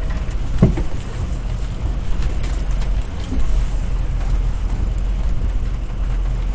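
Ford F-250 pickup's engine running at low speed, a steady low rumble, with a few light knocks and creaks.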